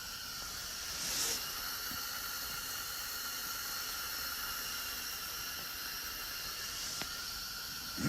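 Steady hiss of a portable tent heater running, with a brief louder swell of noise about a second in.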